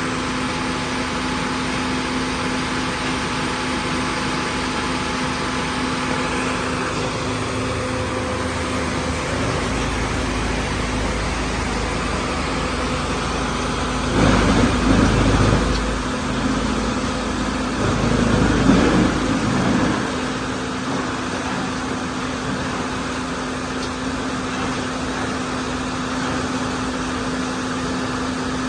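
Diesel engine of a crawler wood chipper running steadily, with two louder, rougher surges about halfway through, each lasting about two seconds.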